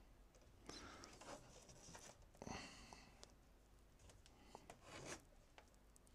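Near silence with faint rustles and a few soft clicks, like a hand moving about.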